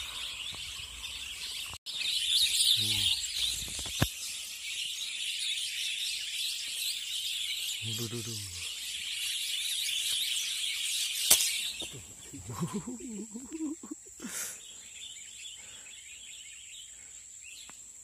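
A dense, high chorus of many birds chattering and chirping together in the treetops, which stops about two-thirds of the way through. A few short, low voice-like sounds come in between.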